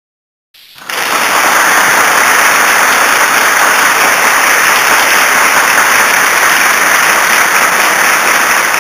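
A crowd applauding, starting suddenly about half a second in and holding loud and steady.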